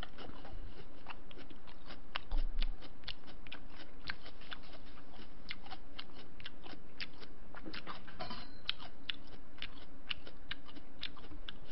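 Close-miked chewing: a person eating with irregular crisp crunches and wet mouth clicks, several a second. One louder low thump about two and a half seconds in.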